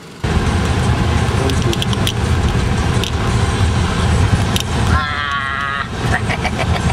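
Inside a car driving on a rough gravel road: steady low road and engine rumble with short rattles and knocks as it bounces over the bumps. About five seconds in, a brief wavering high tone sounds over it for about a second.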